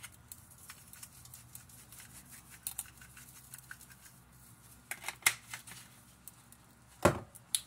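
Plastic seasoning shaker bottle being handled and shaken: a scatter of small plastic clicks and rattles, with a sharper knock about seven seconds in.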